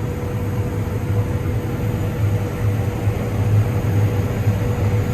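Combine harvester running in corn, heard from inside the cab: a steady low drone with a faint steady whine above it.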